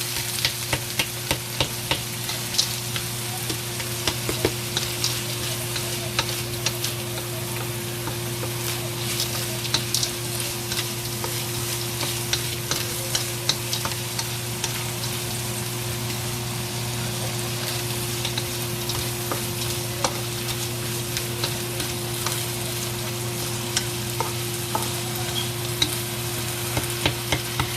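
Frozen carrots and peas frying in hot oil in a pan on high heat: a steady sizzle with frequent sharp pops and clicks, over a steady low hum.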